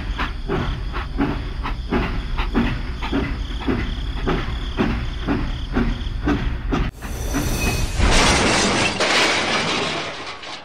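Battery-powered toy steam locomotive and wagon running along plastic track, a steady rumble with evenly spaced clicks. In the last few seconds a loud rushing hiss takes over, then fades.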